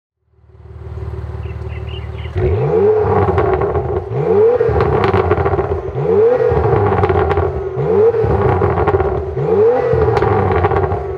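Porsche Macan Turbo 3.6 twin-turbo V6 idling through a Stone valvetronic cat-back exhaust with the valves open, stepping up in loudness about two seconds in, then blipped five times, the revs climbing and falling back each time.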